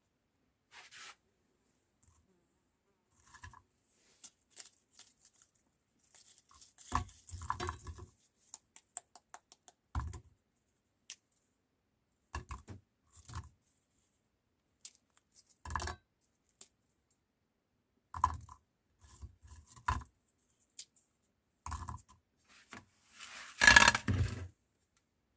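Scattered light clicks, taps and rustling handling noises with silent gaps between, the loudest cluster near the end: crisp toast rusks and the meat grinder being handled.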